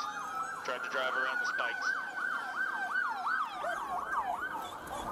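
Police sirens sounding together: a fast yelp rising and falling about three times a second over a second siren's steady held tone.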